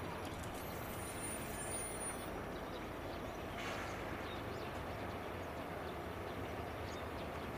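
Steady background noise, an even low rumble and hiss with no distinct events, and one faint short click about three and a half seconds in.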